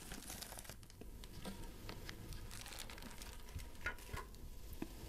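Faint crinkling of a plastic bag of kerupuk crackers as a cracker is taken out, then a few soft taps.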